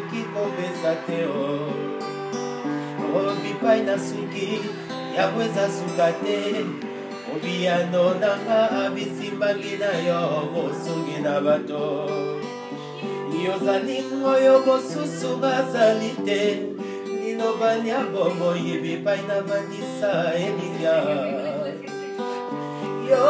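Acoustic guitar played continuously, chords and picked notes, with a man's voice singing along at times.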